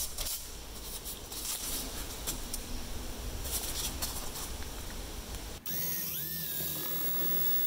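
Power drill with a small twist bit boring a pilot hole into the wooden dowel glued under the cast iron dispenser's cutter. A rough scraping noise for the first five seconds or so, then the drill motor's whine rises in pitch and settles into a steady tone.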